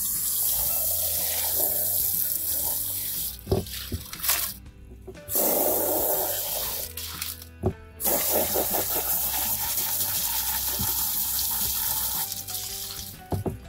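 Water from a hose spray nozzle blasting into a rubber rock-tumbler barrel and splashing out over stones and ceramic media in a sieve, rinsing out the grit slurry. It comes in three long spells with brief pauses, with a couple of sharp knocks in the gaps.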